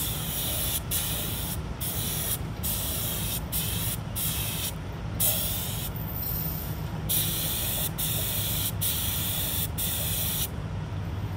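Compressed-air paint spray gun spraying matte black paint: a hiss that starts and stops with each trigger pull, about ten bursts of a second or so with short gaps between them.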